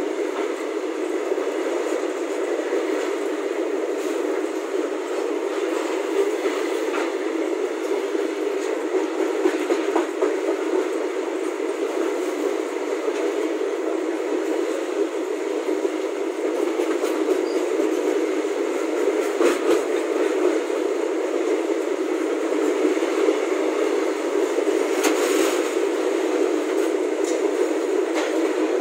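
Covered freight wagons of a passing goods train rolling by close at speed: a steady loud rush and rattle of wheels on rails, with a few sharp knocks.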